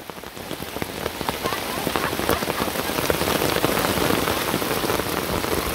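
Rain falling in a storm: a dense hiss of drops striking close by. It grows louder over the first two seconds.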